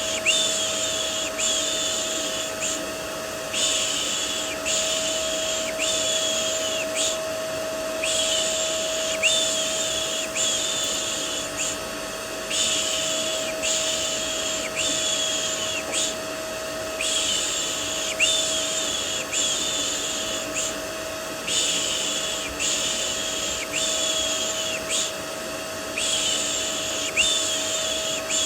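Rhythmic 'shh' shushing in sets of four over the steady hum and whine of a vacuum cleaner, a soothing white noise for getting a baby to sleep.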